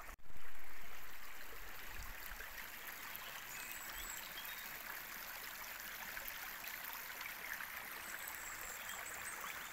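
Steady rushing of a river running full of water. It is louder for the first couple of seconds, then settles to an even level.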